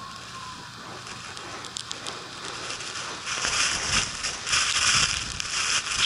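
Blizzard wind driving blowing snow: a steady hiss that swells into stronger gusts about three seconds in, with gusty rumbles of wind on the microphone.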